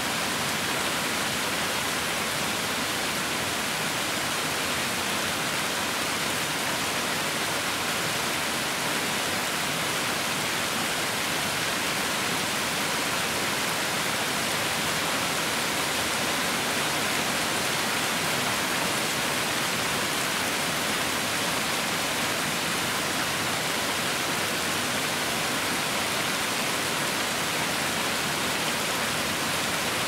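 Steady rain, an even hiss of falling water, strongest in the upper range.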